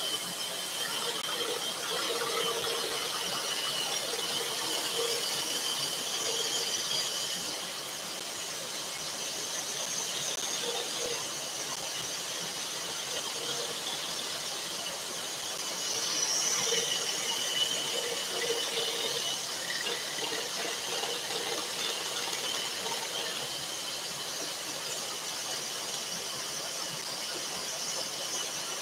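Scroll saw running with a fine modified-geometry blade cutting through a wooden workpiece, a steady high-pitched whine over the rasp of the cut that eases and swells a little as the work is fed and turned.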